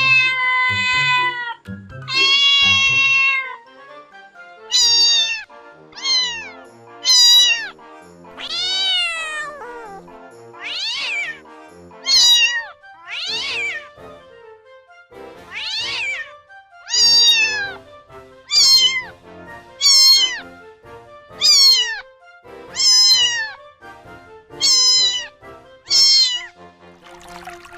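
A domestic cat meowing over and over. Two long, drawn-out meows open the run, followed by about fifteen shorter meows, each falling in pitch, at roughly one a second.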